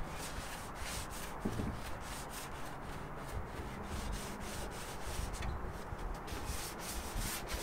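Sanding sponge rubbed back and forth by hand over a wooden chair frame, a faint, repeated rubbing as the old dark finish is scuffed before repainting.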